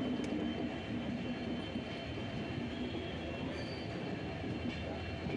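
Passenger express train moving slowly on the rails, heard from an open coach door: a steady rumble of the coaches' wheels and running gear, with a faint steady high tone above it.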